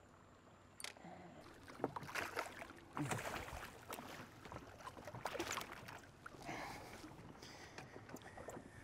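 Small snook splashing at the surface as it is reeled in and swung up to the side of a small boat, with irregular splashes and rod, reel and deck handling noises starting about a second in.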